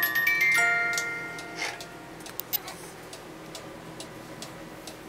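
A cuckoo clock's music box plays its last few plucked notes, which ring on and fade within the first second or two. A few clicks follow, then the clock's pendulum movement ticks steadily, about twice a second.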